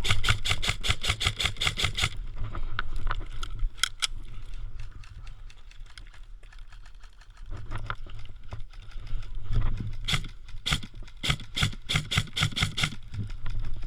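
Airsoft electric rifle firing, a rapid run of sharp clicking shots for about two seconds at the start, then scattered single shots, and another burst of shots near the end.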